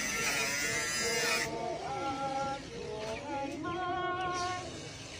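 People's voices with drawn-out, wavering tones, over a rushing background noise that drops away about a second and a half in.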